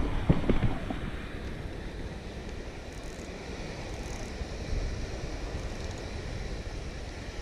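Wind buffeting the microphone over steady surf, with a few knocks in the first second.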